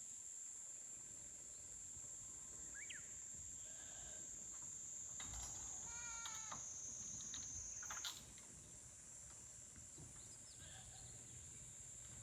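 A goat bleats once, a short wavering call about five and a half seconds in, over the steady high-pitched drone of insects.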